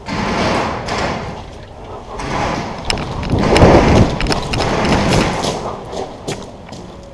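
Thuds and rustling of a paintball player on the move, picked up by a head-mounted action camera, swelling and fading about once a second, with a few sharp clicks around the middle and near the end.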